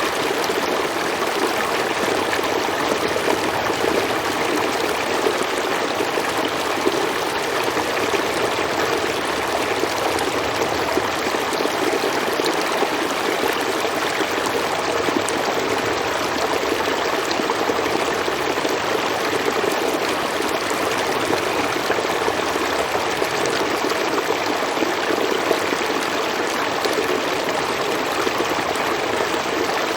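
Flowing water, a stream rushing and splashing in a steady, unbroken wash.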